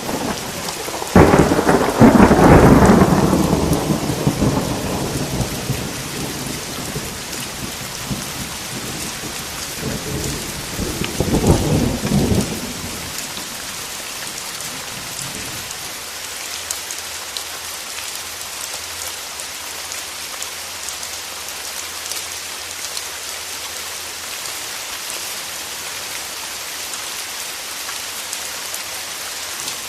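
Steady rain with a thunderclap about a second in that rumbles away over several seconds, then a second, shorter rumble of thunder around the tenth to thirteenth second.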